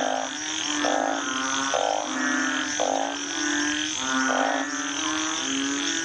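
Chorus of frogs calling, with overlapping low droning calls and a pulsed call repeating about once a second.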